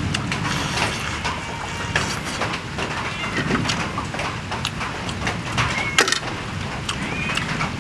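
Close-up eating sounds: hands tearing a charcoal-grilled whole chicken apart and chewing it, with frequent sharp crackles and crunches of charred skin and meat pulling off the bone, over a steady low rumble.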